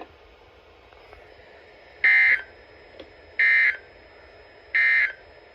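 Emergency Alert System end-of-message (EOM) data signal received on a NOAA Weather Radio: three short, identical digital bursts about 1.3 seconds apart, starting about two seconds in. It marks the end of the alert.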